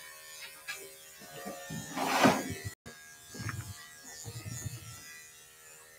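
Corded electric dog clippers buzzing steadily as they shave a cocker spaniel's coat. About two seconds in there is a brief loud burst of noise.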